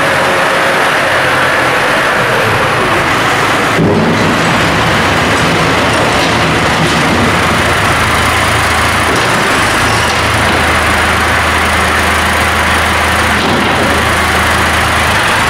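McCormick tractor's diesel engine running steadily under load as it works its front loader, with a sharp change in the sound a little under four seconds in.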